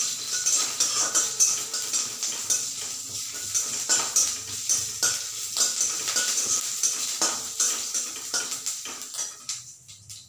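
Metal spatula stirring and scraping in a steel kadai, with many quick clicks and taps, over the sizzle of green chillies and curry leaves frying in oil for a tadka. The stirring dies away near the end.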